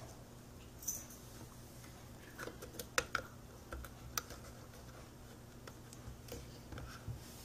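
Light clicks and taps of the hard plastic parts of a model flintlock pistol being handled, a dozen or so scattered sharp clicks with the loudest in the middle, over a steady low hum.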